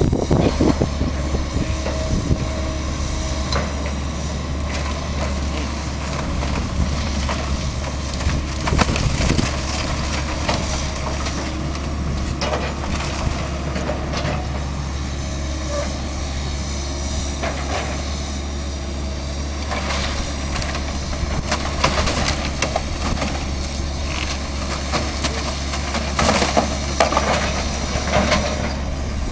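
A heavy demolition machine's engine running steadily while wreckage of a wood-frame house is crunched and torn apart, with repeated cracks and snaps of breaking timber and debris and occasional metal squeals.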